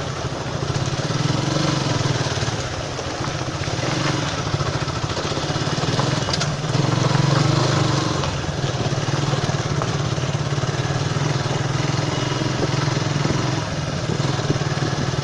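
Suzuki Gixxer motorcycle's single-cylinder engine running steadily while being ridden, its note rising and easing a little.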